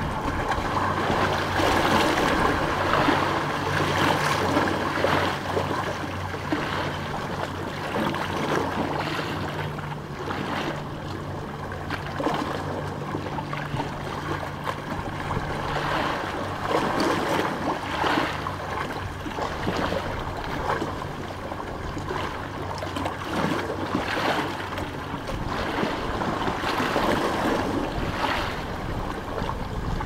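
Small sea waves washing and splashing against a stony shore, swelling and easing in turn. A steady low hum runs underneath and fades out about two-thirds of the way through.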